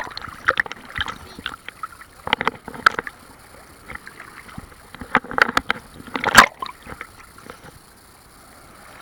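Big sea waves splashing and sloshing in irregular surges close to the microphone, the loudest about six and a half seconds in.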